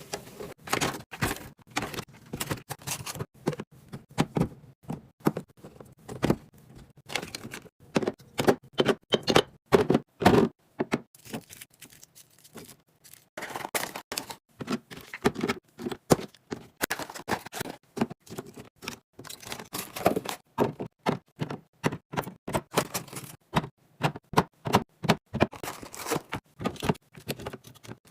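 Rapid, irregular clicks, taps and knocks of snacks and drinks being handled and set into place during a snack drawer and fridge restock, with a brief lull about twelve seconds in.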